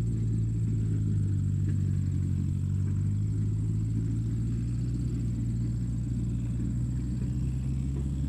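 Steady, even engine-like drone from RC construction vehicles, with a thin high whine above it.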